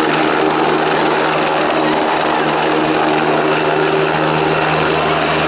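Eurocopter Tiger attack helicopter hovering low: the steady noise of its rotor and twin turboshaft engines, with a thin high whine running above it.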